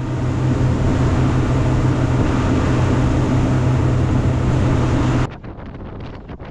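Charter boat's engine running steadily, a loud even drone with a deep hum. About five seconds in it stops abruptly and gusts of wind buffet the microphone.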